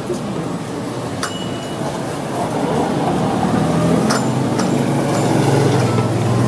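Street noise with a motor vehicle's engine running close by, its low hum growing louder from about halfway through. Two light clinks, one about a second in and one about four seconds in.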